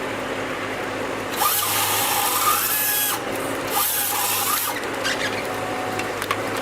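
Power saw cutting in two bursts, the first about one and a half seconds long and the second about a second, over a steady low machine hum.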